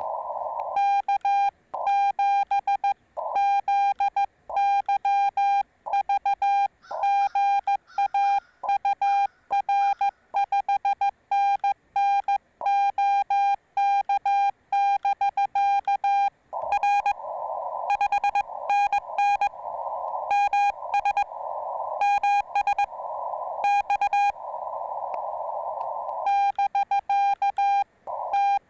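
Morse code from a Yaesu FT-891 transceiver: one high beeping tone keyed on and off in rapid dots and dashes as code is sent on paddles. About halfway through, a band of receiver hiss comes up between shorter runs of tone while the operator listens, and steady sending returns near the end.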